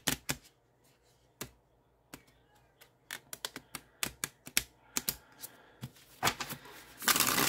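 A tarot deck being shuffled by hand: light, scattered clicks and taps of cards, coming thick and fast through the middle, then a short riffling rush of cards near the end.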